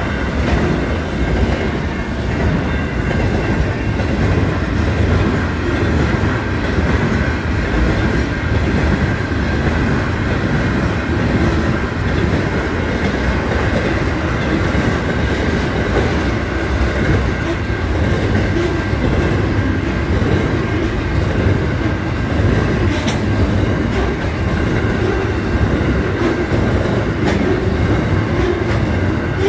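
Freight train's container wagons rolling past close by, a steady rumble and clatter of steel wheels on the rails.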